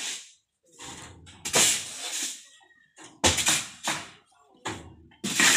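About half a dozen scraping strokes, each with short pauses between: a hoe dragging river sand down the tipped bed of a tractor trailer, the sand hissing as it slides off.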